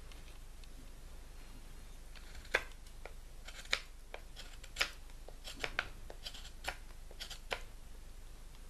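Mora Bushcraft Force stainless-steel knife shaving a point on a dry, hard wooden stick. It is a run of short, sharp cuts, roughly one a second, starting about two and a half seconds in, with smaller scraping strokes between them.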